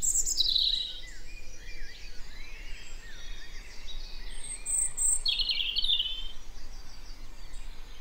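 Garden birds singing: a quick high descending trill near the start and another about five seconds in, with fainter swooping chirps between.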